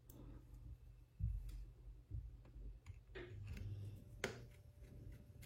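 Faint, scattered clicks and light taps of small smartphone parts being handled and fitted together during a repair.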